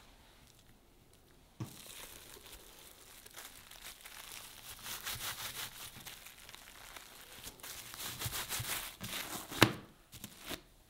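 Plastic wrap on a bamboo sushi mat crinkling and rustling as a sushi roll is rolled and pressed in it, with many small ticks. Near the end comes one sharp knock, then a few softer taps.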